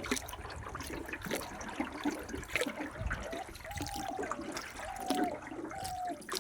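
Water splashing and sloshing irregularly around a small boat. About halfway through, three or four short calls, each rising then falling in pitch, come over it.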